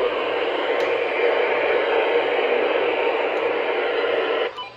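Weather radio receiver putting out steady static hiss from a weak signal, with no clear voice coming through; the hiss cuts off abruptly about four and a half seconds in.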